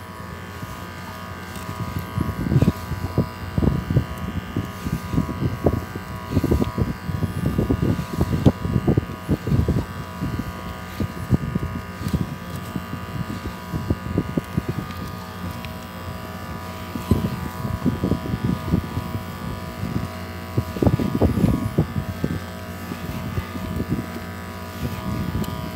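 Steady buzzing hum under irregular low knocks and rubbing from a fishing rod and reel being handled aboard an inflatable boat while a hooked fish is reeled in.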